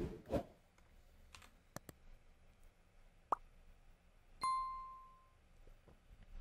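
Subscribe-button animation sound effects: a short thump at the start, two quick mouse clicks, a short rising pop, then a single bell ding that rings for about a second.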